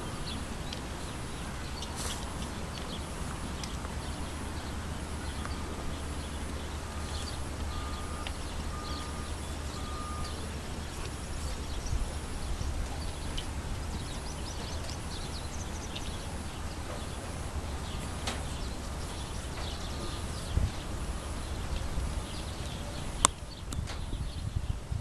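Hoofbeats of a Rocky Mountain Horse filly moving under saddle on arena sand, with a steady low rumble underneath.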